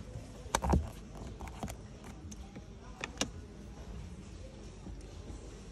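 BMW X7 door being opened from inside: the interior handle is pulled and the latch releases with a click and a dull knock about half a second in, followed by a few lighter clicks around one and a half and three seconds.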